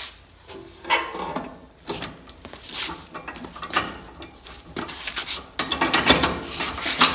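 Hand ratchet wrench clicking, with scattered knocks of metal tools and parts. In the last second and a half or so it turns into a quick, steady run of clicks.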